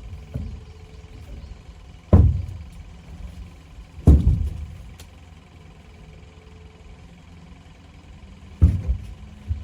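Dull, low thumps: three sharp hits about two seconds apart, then a longer gap before the last, each fading out within about half a second.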